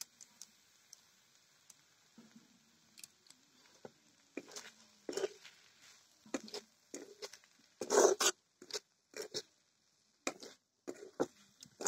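Metal spatula stirring and scraping vegetables around a metal kadhai: irregular short scrapes and knocks, loudest about eight seconds in.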